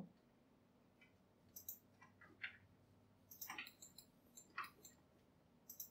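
Near silence with a handful of faint computer mouse and keyboard clicks, scattered irregularly.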